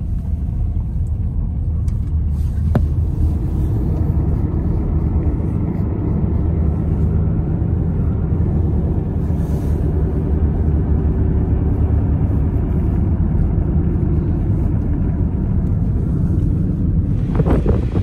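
Steady low rumble of road and engine noise inside a moving car. About a second before the end it gives way to gusts of wind buffeting the microphone.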